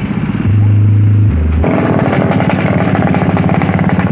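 Motor scooter engines running close by as scooters ride past. A deep low hum fills the first second or so, then from just under two seconds in a fast, even engine pulsing takes over.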